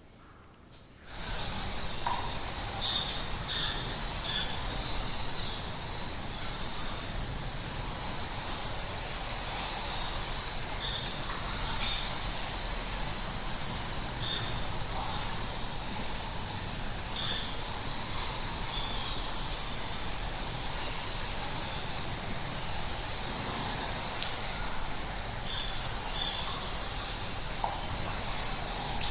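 Bat cave ambience: dense, high-pitched chatter of a colony of bats with scattered short squeaks, starting abruptly about a second in.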